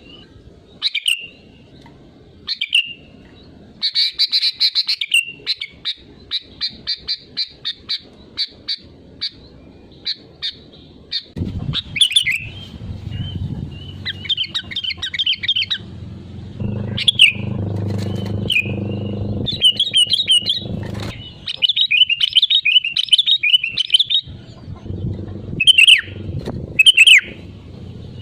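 Sooty-headed bulbul singing: short bubbly whistled phrases repeated over and over, with a fast run of clipped chattering notes early on. A low rumble sits underneath through the middle.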